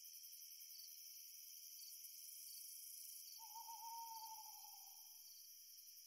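Crickets chirping in a steady, faint, high-pitched chorus. A little past halfway an owl gives a single drawn-out, slightly wavering hoot lasting about two seconds.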